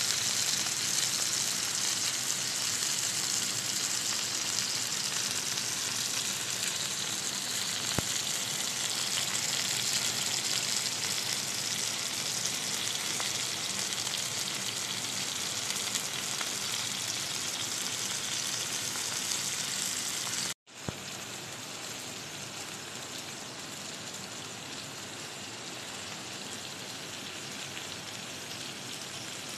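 Chicken breasts sizzling as they pan-fry in hot oil, a steady dense hiss. About two-thirds of the way through it cuts out for an instant and comes back a little quieter.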